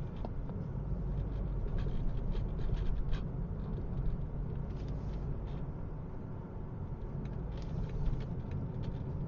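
Steady low road and engine rumble inside a moving car's cabin, with a few faint scattered clicks.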